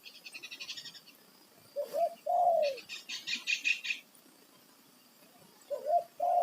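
Spotted dove cooing: two short notes followed by a longer falling note, given about two seconds in and again near the end. A small bird's rapid, high chirping trill sounds at the start and again around three seconds in.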